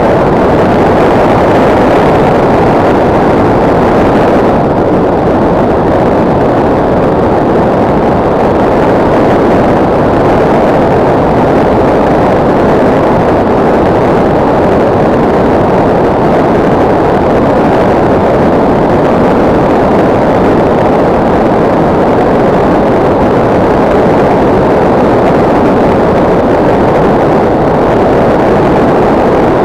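Steady, loud rushing noise heard from a camera riding on a SkyCruise 2400 electric RC plane in flight: airflow over the airframe mixed with its drive noise, with no clear pitch and no change in level.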